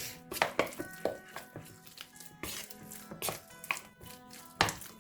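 A utensil knocking and scraping against a bowl in irregular clinks while chicken pieces are mixed into a thick marinade, over soft acoustic guitar music.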